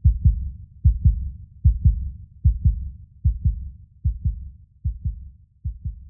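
Heartbeat sound effect: a steady lub-dub of paired low thumps, a little faster than one beat a second, slowly growing fainter.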